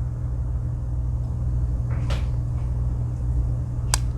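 Steady low hum with a few light clicks from handling a Swiss Army pocketknife, the sharpest click near the end.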